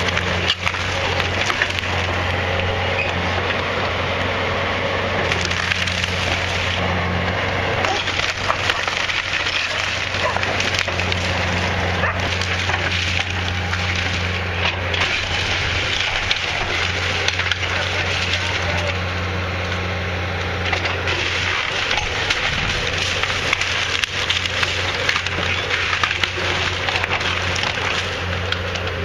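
Timber of an old wood-framed house splintering and cracking as it is torn down, a dense run of crackles and snaps over a steady low machine hum.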